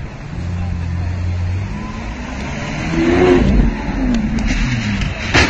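Lamborghini supercar engine revving hard as it accelerates, its pitch rising and falling and loudest about three seconds in. A single sharp crack near the end.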